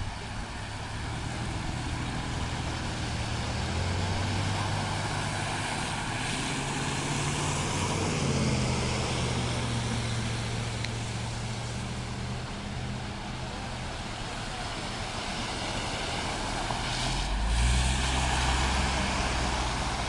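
A motor vehicle's engine running, its pitch shifting about eight seconds in and again near the end, over a steady rushing noise.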